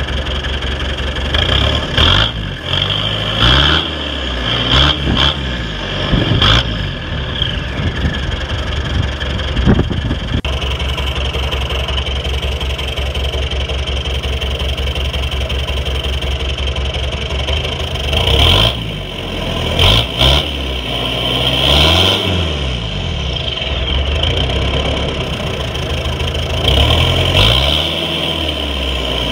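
Daihatsu Fourtrak engine running through a new flexible exhaust pipe that exits just ahead of the rear wheel. It idles steadily and is revved up and back down several times: a few seconds in, again around the twenty-second mark, and near the end.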